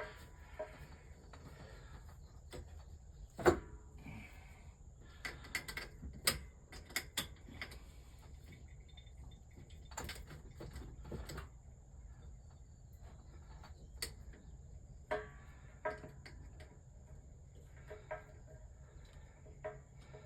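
Scattered clicks and knocks of parts and tools being handled, over a faint steady low hum and a thin steady high-pitched whine.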